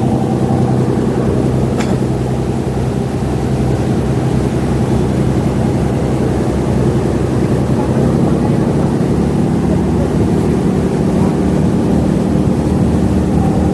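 Passenger ferry's engines running with a steady low drone that holds an even pitch throughout, with one short click about two seconds in.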